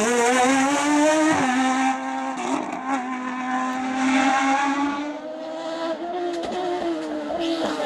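Radical SR4 sports-prototype race car engine running at high revs as it climbs. The pitch dips briefly about a second and a half in, as at a quick gear shift, then holds high and steady, growing fainter from about five seconds in as the car moves away.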